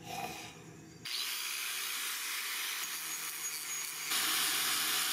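Angle grinder cutting along the edge of a steel sword blank, a steady hissing grind. It starts suddenly about a second in and gets louder about four seconds in.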